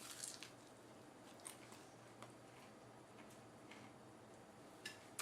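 Near silence with a few faint crunches and mouth clicks: someone chewing crispy deep-fried breaded tuna.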